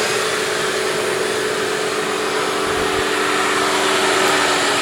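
Jet 3-inch by 79-inch belt grinder's 4 horsepower three-phase motor running steadily with no belt fitted: a steady hum over an even rush of noise.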